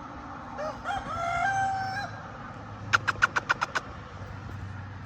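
Rooster crowing once, the call rising and then held level for over a second, followed about three seconds in by a quick run of about eight clucks.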